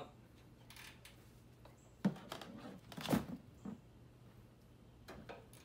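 A few sharp metal clicks and knocks from a wrench and 10 mm socket working loose the oil drain plug on a lawn mower engine, the loudest about two and three seconds in.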